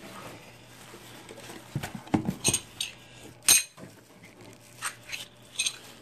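Small loose metal parts, the saw's blade plates and wrench in a plastic bag, clinking and knocking as they are handled in a cardboard box. The clinks come in an uneven run starting about two seconds in, the loudest at about three and a half seconds.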